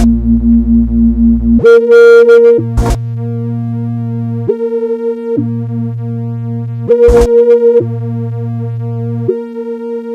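Synthesized low-pitched speaker-cleaning tone, meant to vibrate water out of a phone speaker: a steady low hum with a deeper bass tone that cuts out and back in every second or two, with sharp clicks where the pattern changes.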